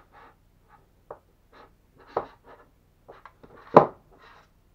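Rustling and light clicks from handling an electronic speed controller and its stiff power and signal wires, with sharper knocks about one and two seconds in and a louder knock near the end.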